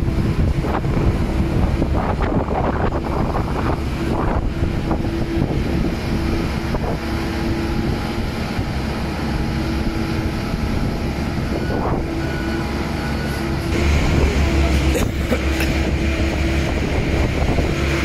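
Construction machinery engines, a skid-steer loader among them, running steadily with a constant hum. The sound grows louder and deeper about fourteen seconds in.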